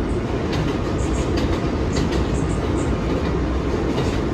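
Interior of an R160A New York subway car running along the track: a steady rumble with irregular clicks of the wheels over rail joints and a few short high squeaks.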